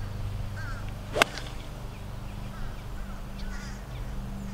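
A single sharp click of an 8-iron striking a golf ball off the tee, about a second in; the golfer calls it a really poorly hit shot. Faint bird chirps sound in the background.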